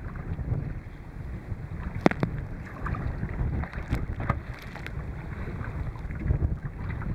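Strong headwind rumbling and buffeting on the microphone, with choppy sea splashing around a kayak as it is paddled. There are sharp splashes about two seconds in and again around four seconds in.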